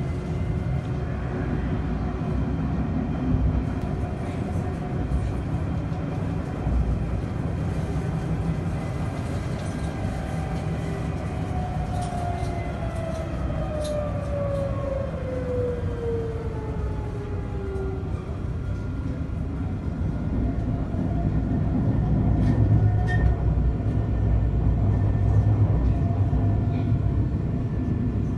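Tram running along its track, heard from inside the car: a steady low rumble, with a whine that glides down in pitch about halfway through. The rumble grows louder near the end.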